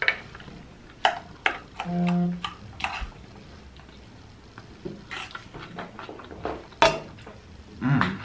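Close-up eating sounds: irregular wet mouth clicks and smacks, with light knocks like cutlery on a plate, and a short steady hum about two seconds in.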